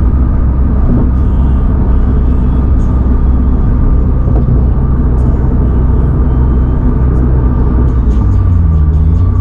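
2022 Subaru BRZ's 2.4-litre flat-four, fitted with aftermarket headers, running steadily while cruising, with a steady road rumble. About eight seconds in, the engine note steps to a new, steady pitch.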